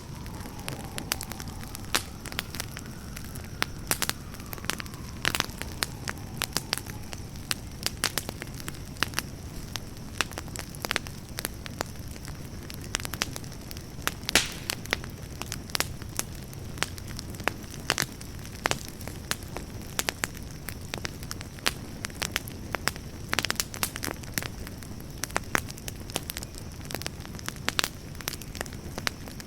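Wood campfire crackling: frequent sharp pops and snaps over a steady low rumble of the flames, with one louder pop about fourteen seconds in.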